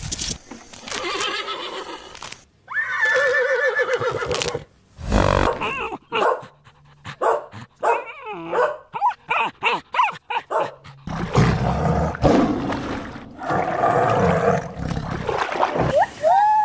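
A series of different animal calls one after another: a drawn-out pitched call, then a run of short, quick calls, then a noisier stretch, with gliding calls starting near the end.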